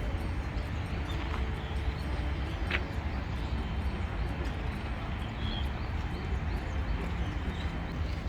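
Outdoor park ambience: a steady low rumble with a few faint, short bird chirps, one a little before the middle.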